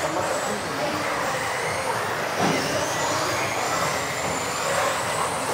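Several electric off-road RC cars racing: high motor whines rising and falling as they accelerate and brake, over steady tyre and running noise. A short thump comes about two and a half seconds in.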